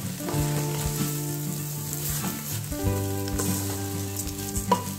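Basmati rice being stirred into soya-chunk masala in a pressure cooker, with sizzling and stirring. Soft background music with held chords that change every second or two runs underneath.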